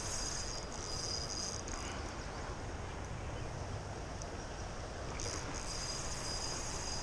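High, steady trilling of insects, which drops out for about three seconds in the middle and comes back, over a low, even rushing noise.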